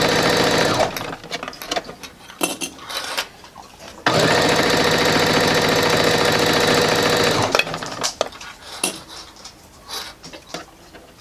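Domestic sewing machine stitching along a narrow folded cotton tie band, running in two steady stretches: for about the first second and again from about four seconds in for some three and a half seconds. Between and after the runs there are only light clicks and rustles of the fabric being handled.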